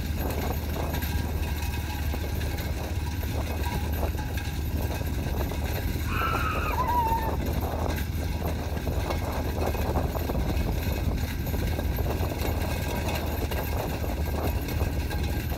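Hooves of a pair of racing bulls trotting on a dirt track, mixed with the rattle of the light two-wheeled racing cart, over a steady low rumble. A brief call rises and falls about six seconds in.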